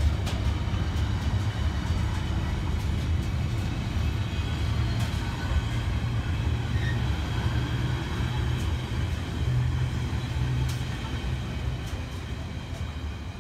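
Container freight train's wagons rumbling past close by, with scattered wheel clicks and a faint high ringing over the rumble. It fades as the last wagon goes by near the end.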